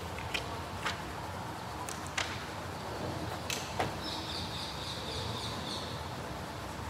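Quiet room noise with a few sharp light clicks, and about four seconds in a high, rapid chirping that lasts about two seconds.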